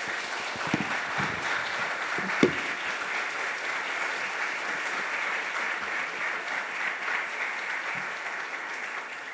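Audience applauding steadily, easing off a little near the end, with a sharp thump about two and a half seconds in.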